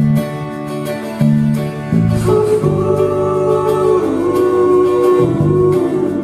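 Live band rehearsing a song, with guitar and chords that change every second or so. A voice holds a long note without words that dips and rises in pitch, from about two seconds in until near the end.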